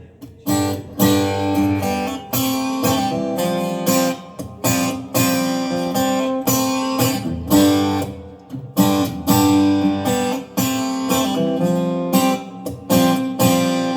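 Acoustic guitar strumming chords in a steady rhythm, each stroke sharp with the chord ringing on: the song's instrumental intro before the vocals come in.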